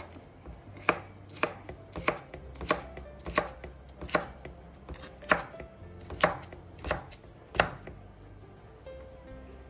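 Knife chopping on a cutting board in slow, even strokes, about one every two-thirds of a second, stopping near the end.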